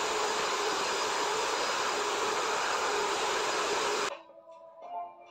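Corded stick vacuum cleaner running steadily, a constant whirring hiss that cuts off suddenly about four seconds in. Soft music with separate notes follows.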